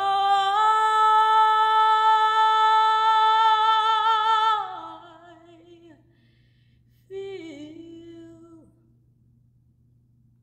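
Mezzo-soprano singing unaccompanied: one long held note that fades out about five seconds in, then a short falling phrase about seven seconds in. A steady low hum sits underneath, and it is quiet after the phrase.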